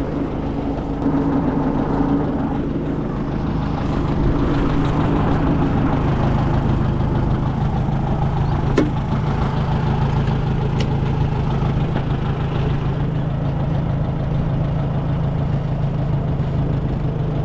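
Oliver Super 55 tractor engine idling steadily. A single sharp click sounds a little before the middle.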